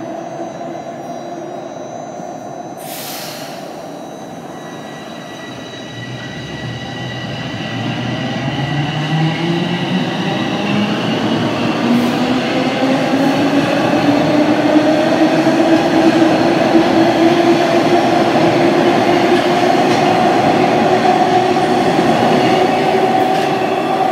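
Bombardier Toronto Rocket subway train pulling out of the station: its traction motors whine, rising steadily in pitch for about ten seconds as the train accelerates and then levelling off, over growing wheel and rail noise. A brief hiss about three seconds in.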